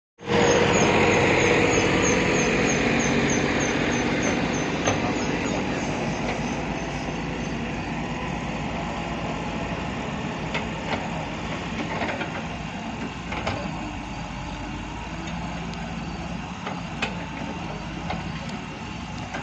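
Volvo excavator's diesel engine running steadily as the machine digs, with scattered knocks of the bucket against soil and stones.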